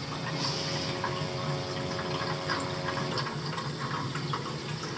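Old gas-fired boiler running just after startup, with a steady rushing, water-like noise of burner and circulating water. A steady hum drops out about three seconds in.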